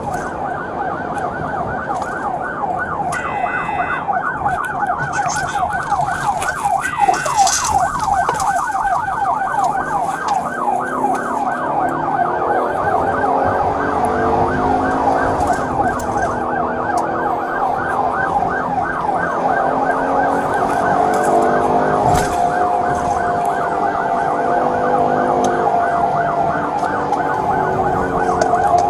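Police siren sounding a rapid yelp, heard from inside the moving patrol car. From about a third of the way in, a slower wailing siren joins underneath.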